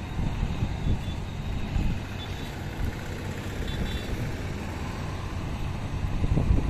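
Wind rumbling on the microphone outdoors, a steady low rumble that gusts louder near the end.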